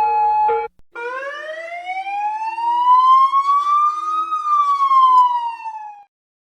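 Police siren: a two-tone hi-lo pattern that cuts off under a second in. After a brief gap, a single wail climbs slowly for about three seconds, then falls and stops near the end.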